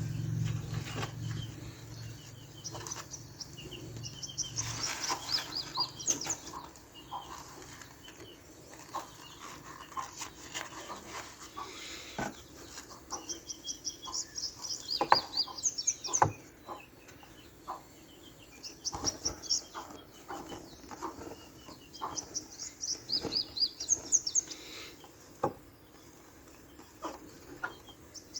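Small plastic toy parts clicking and tapping as they are handled and fitted together, with birds chirping in the background in short runs of quick high notes that step downward.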